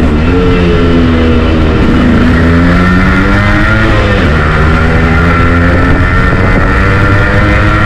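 Yamaha RX100's 98 cc air-cooled two-stroke single-cylinder engine pulling under way. Its pitch climbs, drops sharply about four seconds in at a gear change, then climbs again.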